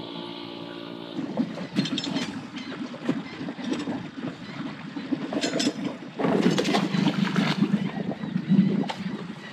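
Water splashing and sloshing around an inflatable dinghy being handled by its rope in shallow water, with wind buffeting the microphone. It is irregular throughout and gets louder from about six to eight seconds in.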